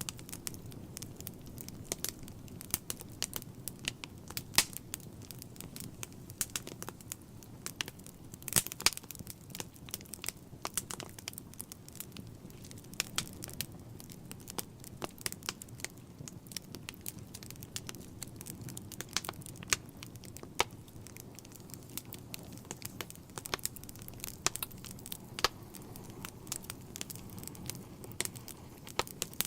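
Wood fire burning in a fireplace, crackling with frequent irregular pops and snaps, a few louder than the rest, over a low steady rumble.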